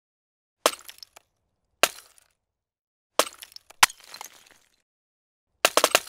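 Sound effects for an animated intro: a handful of sudden crashing hits with clinking debris, each trailing off quickly, about a second or so apart. The last is a rapid run of several hits.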